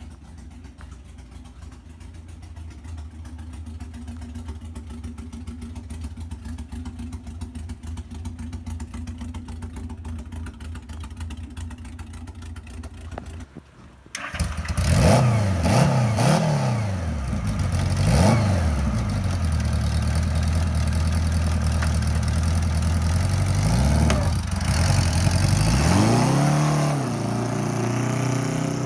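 Late-1970s Honda Gold Wing 1000cc flat-four engine in a homemade dune buggy, running at a steady low idle. After a sudden break about halfway through it is revved hard, its pitch rising and falling several times as the buggy is driven.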